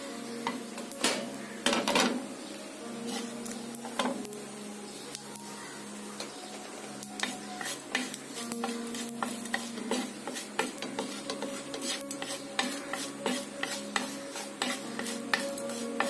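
Tempering in hot oil: mustard seeds, urad dal and curry leaves sizzling and crackling, with a wooden spatula stirring and scraping across a nonstick pan. Sharp pops and clicks run all through, with a few louder ones about one to two seconds in.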